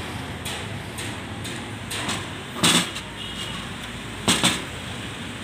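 A few sharp knocks as dismantled Honda Supremo cylinder-head parts are handled, one near the middle and two in quick succession about a second and a half later, over a steady background hum.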